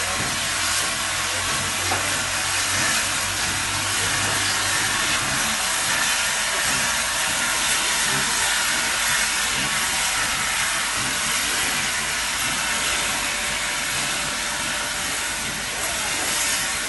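BR Standard Class 8 Pacific 71000 'Duke of Gloucester' moving slowly with its cylinder drain cocks open: a loud, steady hiss of steam blowing out at the cylinders.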